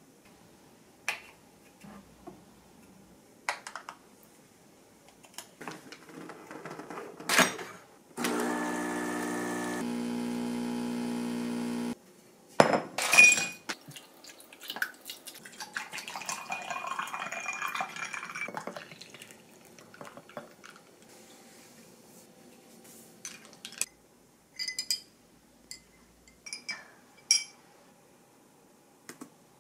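Home iced-coffee making: a small kitchen machine hums steadily for about four seconds and cuts off, then ice cubes clatter into a glass, followed by a stretch of pouring and light clinks of ice against the glass near the end.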